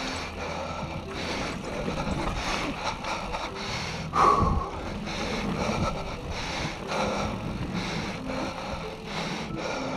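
Norco Range A1 mountain bike riding down a dirt-and-rock singletrack: tyres rolling and the bike rattling over the ground, with wind on the microphone and the rider's heavy breathing. A sudden louder jolt about four seconds in.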